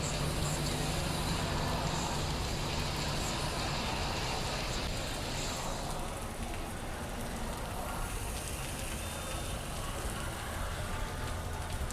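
Motorcycle riding heard from a helmet mic: a steady wind rush with the low, even drone of a Honda CBR1000's inline-four engine through its Two Brothers exhaust, the engine note clearest in the first couple of seconds.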